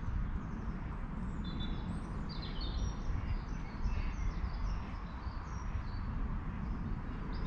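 Small songbirds chirping in short, high, repeated notes over a steady low rumble.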